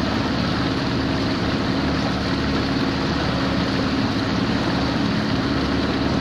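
Motorboat's outboard engine running steadily: a constant low hum under an even rushing noise.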